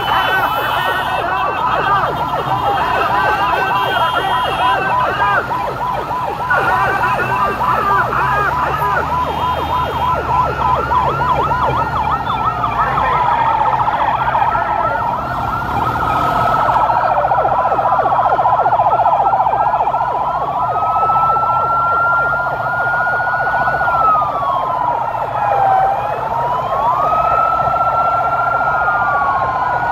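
Several emergency-vehicle sirens sounding together: fast overlapping yelps for about the first dozen seconds, then slow wails rising and falling. A low rumble of vehicle engines runs underneath.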